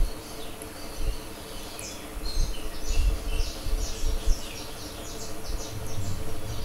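Small birds chirping over and over, quick high downward-sweeping notes, with low thuds and a rumble around the middle.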